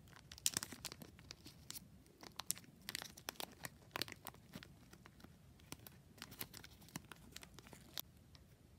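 Paper packaging crinkling and rustling as it is handled, a dense run of crisp crackles that starts just after the beginning and stops about a second before the end.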